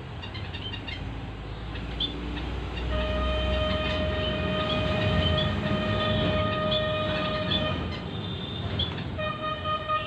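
A horn sounds one long steady note for about five seconds, then starts again near the end, over a low rumble. Faint short chirps sound in the background.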